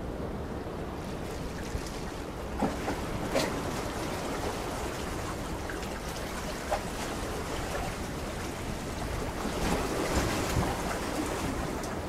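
Sea water washing steadily, with a few louder splashes a few seconds in and again toward the end.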